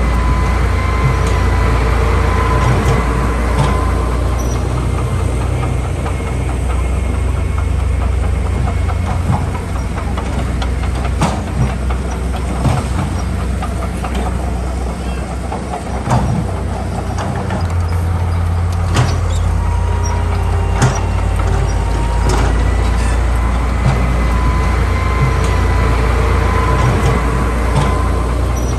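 Heavy diesel engine of an earthmoving machine running steadily under work, with scattered metallic clanks and faint high squealing tones.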